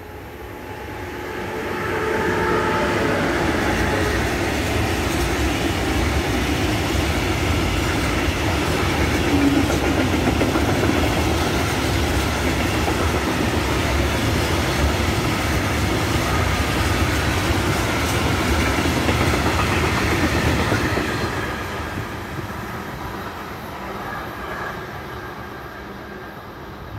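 Freight train hauled by a Siemens Smartron class 192 electric locomotive passing close by: the wagons' wheels run on the rails in a steady noise that builds over the first two seconds, holds loud, then fades away from about twenty seconds in as the train recedes. The wagons are covered hopper wagons.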